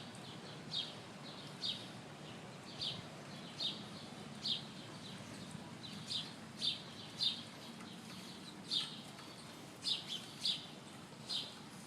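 A bird chirping over and over: short, high, falling chirps about once a second, some in quick pairs, over a faint steady low hum.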